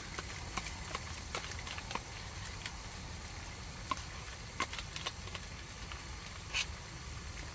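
Bolognese sauce being stirred into browned mince in a pan on a gas camping stove: scattered light taps and scrapes of the utensil against the pan, with a slightly louder clatter near the end, over a steady low rumble.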